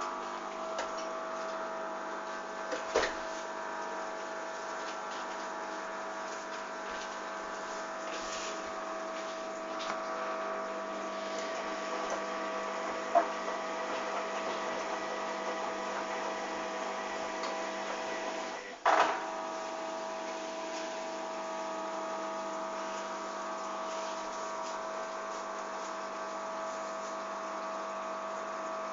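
Hoover DYN 8144 D washing machine running with a steady humming whine. There is a sharp click about 19 seconds in, and faint ticks earlier.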